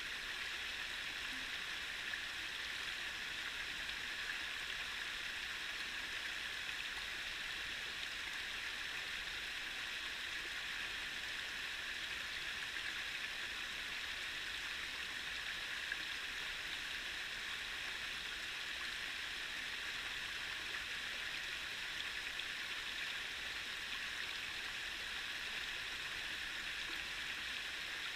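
A small rocky stream pouring over a low rock chute: a steady, unbroken rush of running water.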